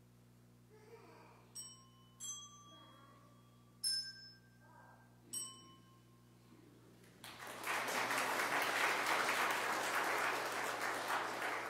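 A few single struck notes from a bell-like or mallet instrument, each ringing and fading, followed about seven seconds in by applause lasting roughly four seconds.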